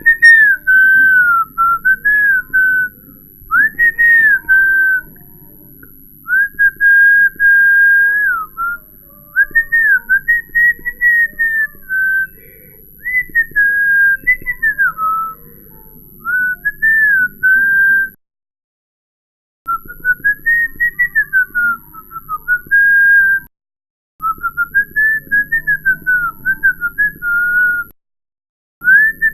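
A man whistling a wandering tune in short phrases, the pitch sliding up and down and holding now and then on single notes. The whistling stops dead a few times for a second or so, the longest break a little past halfway.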